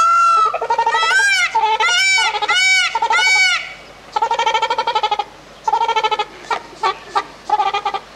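Ruddy shelduck calling with loud, nasal honks: a quick run of rise-and-fall calls over the first few seconds, then shorter, flatter honks with short gaps between them.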